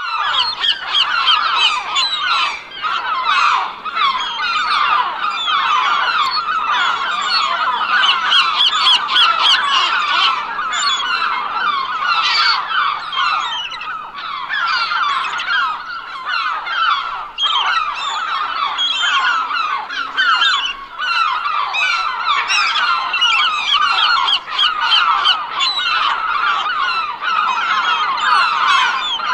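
A large flock of gulls calling all at once, a dense, unbroken chorus of many overlapping squawks and cries.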